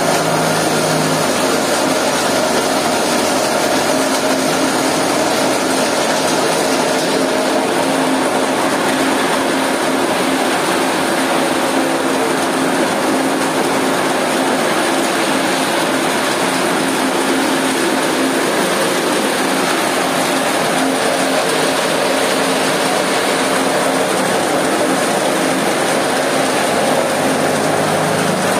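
Small hammer-mill stone crusher, its steel hammers driven by a three-phase electric motor, running steadily as it crushes stone. A constant hum lies under a dense, gritty grinding noise.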